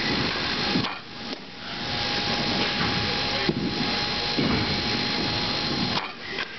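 Steady, loud machine noise, a continuous rushing whir, that drops away briefly about a second in and again near the end.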